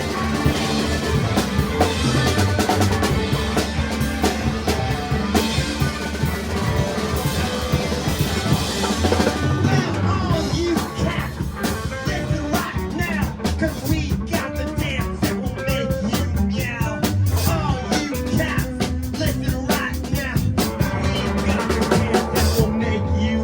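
Live rock band playing a song: drum kit with snare and rimshot hits, bass and electric guitar, with sliding pitches in the second half.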